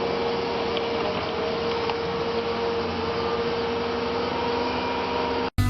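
A machine running steadily: a constant hum with a steady whine, cut off abruptly near the end by a louder, different machine sound.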